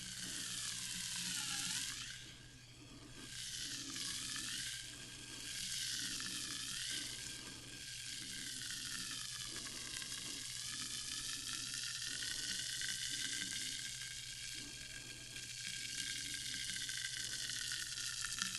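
Sparkling water fizzing: a continuous crackling hiss of carbonation bubbles bursting, over a steady low hum. The fizz briefly drops in level about two seconds in.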